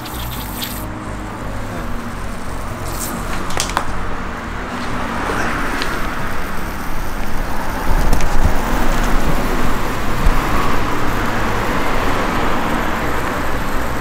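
Continuous spraying hiss of soapy water being sprayed over a removed, pressurized car A/C compressor to find a slow refrigerant leak, with a couple of clicks about three seconds in. The spraying gets louder from about eight seconds in.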